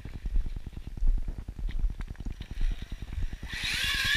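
Axial Yeti XL RC truck's drivetrain clicking rapidly as it drives, with a high electric-motor whine coming in near the end. The clicking is the sign of binding in the drivetrain, which the owner first took for a failing differential or spur gear and later traced to a screw backed out of the diff cup.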